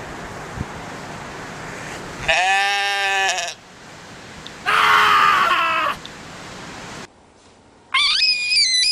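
Goat screaming twice, two loud human-like bleats about a second each, a second or so apart. Near the end a much higher, shrill whistling cry starts, rising sharply and then held.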